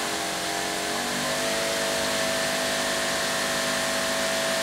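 Greenworks Pro 2700 PSI electric pressure washer running with the trigger held: a steady hiss of water jetting through a 25-degree nozzle over the hum of its induction motor and pump. The hum shifts in pitch for about the first second as it comes up to pressure, then holds steady.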